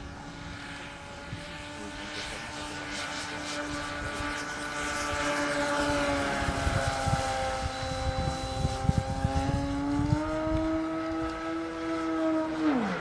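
Electric Extreme Flight MXS aerobatic model plane's motor and propeller whining steadily, getting louder as it passes close by around the middle. The pitch steps up about ten seconds in, then drops sharply near the end.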